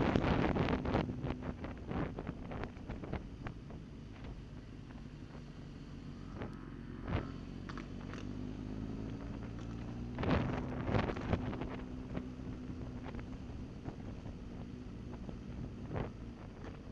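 Motorcycle engine running on the road, with wind buffeting the microphone. The engine gets louder for a moment about ten seconds in, and a few short knocks sound through.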